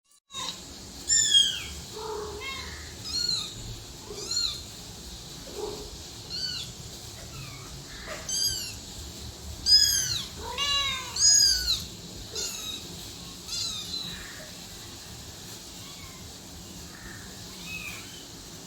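Cat and kittens meowing repeatedly in short, high-pitched mews that fall in pitch, several calling over one another around the middle, then thinning out to a few faint mews in the last seconds.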